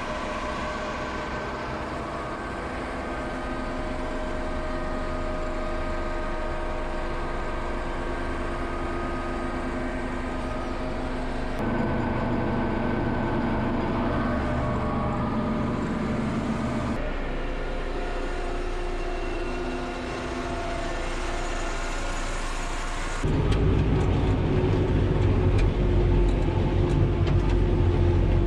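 Heavy farm machinery engines running steadily. The sound changes abruptly three times as different machines come in, and the last stretch is louder and deeper.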